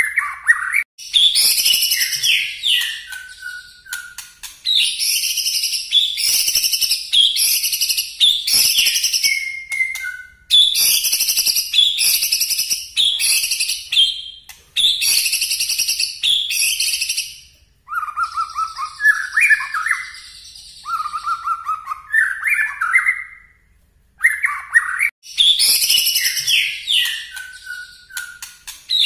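White-rumped shama singing loudly in rapid-fire volleys of quick, sharp, high notes, phrase after phrase with short breaks, with a stretch of lower whistled notes in the middle.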